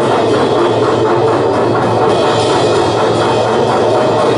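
Noisegrind music: rapid drumming buried in a loud, unbroken wall of distorted noise and guitar.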